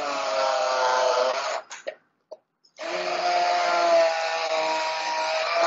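Electric hand (immersion) blender running in a jug of cauliflower in two pushes, a steady motor whine with a quiet gap of about a second between the runs, pureeing the cauliflower to a smooth paste.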